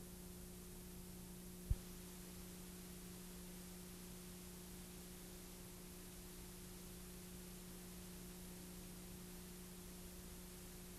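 Steady electrical hum with a faint hiss: recording noise over a blank, black stretch of the tape. One short click just under two seconds in.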